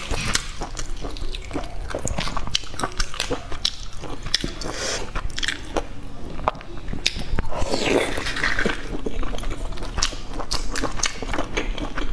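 Close-miked crackling and clicking of eggshells being cracked and peeled off boiled eggs by hand, mixed with biting and chewing. The crackling gets denser and louder about two thirds of the way through.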